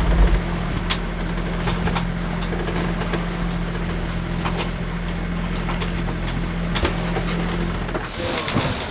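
Boat engine running steadily with a low hum, with a few scattered clicks; the hum stops about eight seconds in.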